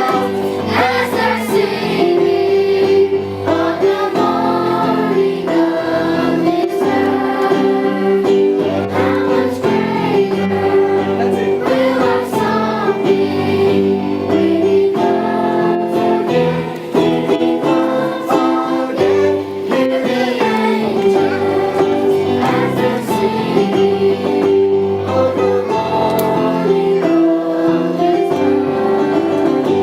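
Children's choir singing a Christmas song over instrumental backing music.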